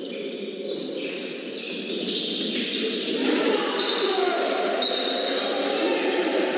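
Handball match heard in an indoor sports hall: a steady din of spectator and player voices, a ball bouncing on the wooden court, and a few high-pitched tones up to about a second long.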